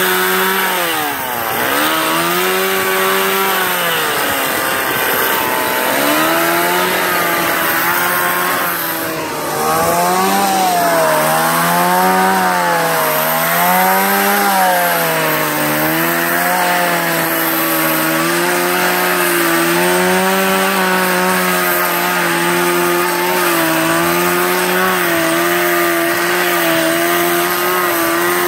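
Stihl two-stroke chainsaw running at high revs while carving into wood. Its pitch dips sharply about a second in and sags and recovers several times over the next stretch as the chain bites into the cut, then it runs fairly steadily.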